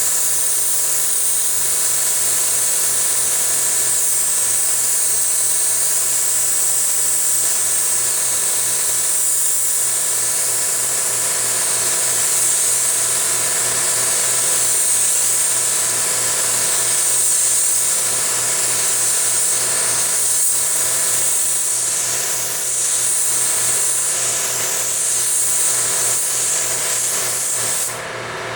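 Compressed-air paint spray gun hissing steadily as base coat is sprayed on a car panel, over a steady machine hum. The hiss cuts out briefly near the end.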